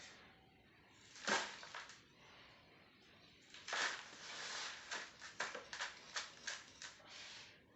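Faint rustling and scraping of dry sand being scooped and packed around a clay pot set in a bucket: two slow swishes, then a quick run of short scrapes near the end.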